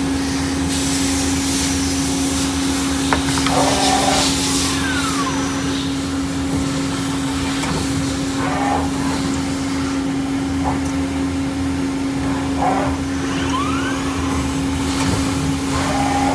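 Okuma LB15 CNC lathe turning a brass part under flowing coolant: a steady machine hum and hiss, with short spells of cutting noise every few seconds and a couple of brief sliding tones.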